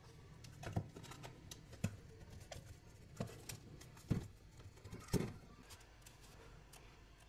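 Faint handling noise as a taped pack of 18650 lithium-ion cells is pushed into a white PVC-pipe casing: scattered soft knocks and scrapes of the pack and plastic, the loudest bumps about four and five seconds in.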